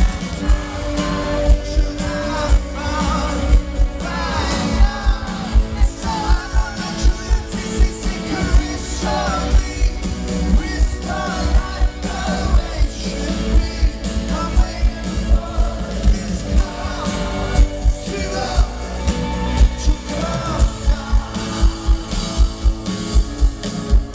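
Live rock band playing an acoustic arrangement with a lead singer, over a steady low drum beat about twice a second.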